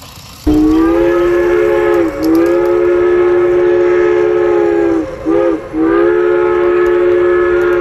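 Train horn sounding a chord of several tones: a long blast starting about half a second in, a brief break, a second long blast, two short toots about five seconds in, then another long blast.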